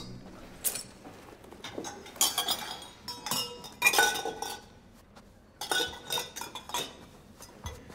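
Metal cups and vessels clinking and knocking together as they are handled and packed into a wicker basket, in several short clusters of clinks with brief ringing.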